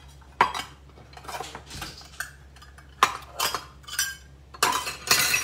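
Metal kitchen utensils and dishes clinking and clattering: a string of short knocks and clinks, busiest near the end, over a low steady hum.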